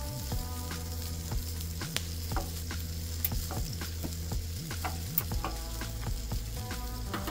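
Meat sizzling on a hot portable propane griddle, a steady frying hiss with a few sharp clicks.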